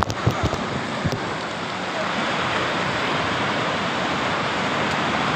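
Sea surf washing in over rocks and sand, a steady rushing hiss, with a few low thumps in the first second.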